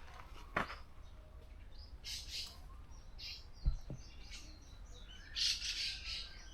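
Wild birds chirping and calling in short bursts in woodland, with one dull low thump a little past halfway.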